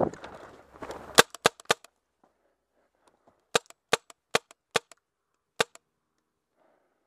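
RAP4 468 magazine-fed paintball marker firing single shots, each a sharp crack. First comes the rustle of the player moving into cover, then three quick shots about a second in, then five more spaced shots a little over a second apart.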